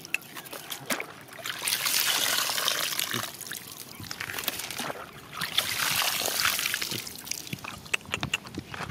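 Water trickling and splashing down a rock face into a shallow muddy puddle, in two longer spells, with scattered drips between.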